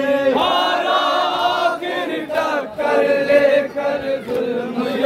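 Men chanting a noha, a Muharram mourning lament, in unison through horn loudspeakers, with long held notes.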